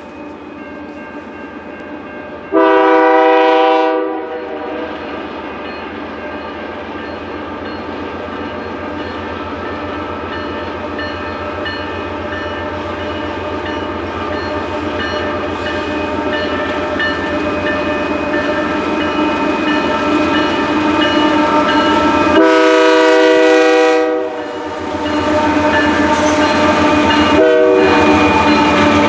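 Approaching Canadian Pacific coal train led by GE AC4400CW diesel locomotives: a steady engine rumble that grows louder as the train nears, with the lead locomotive's chord horn sounding a long blast about 3 seconds in, another about 22 seconds in, and a short one near the end.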